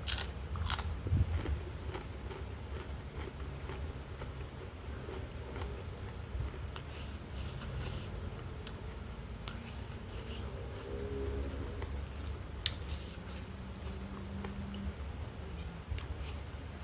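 Close-miked eating: a person chewing, with wet mouth clicks and smacks scattered throughout.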